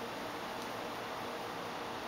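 Steady low hiss of room noise, with no distinct strokes or knocks.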